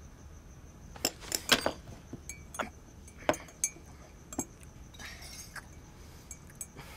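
Dishes and cutlery clinking at a dining table: a scatter of about ten light, sharp clinks of china, the loudest about a second and a half in.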